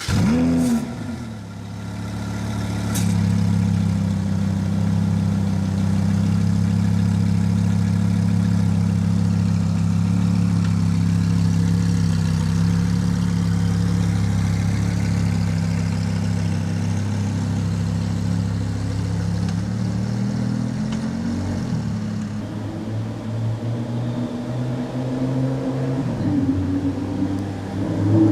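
Lamborghini Huracán V10 just after starting: the revs flare up and drop back in the first second or so, then it holds a steady, fast idle. About two-thirds of the way through, the idle falls lower and runs slightly unevenly with small rises, and right at the end the revs begin to climb.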